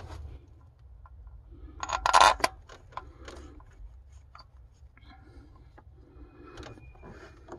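Light clicks and scrapes of metal parts and tools being handled in an engine bay, with one louder scrape about two seconds in.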